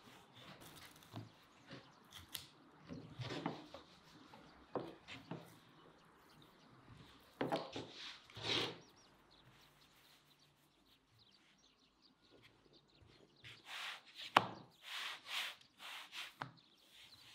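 Wooden rolling pin rolling thin dough on a wooden board: soft rubbing strokes that come and go, with one sharp wooden knock a little past the middle. In between, a few scraping strokes of a knife cutting garlic over a clay bowl.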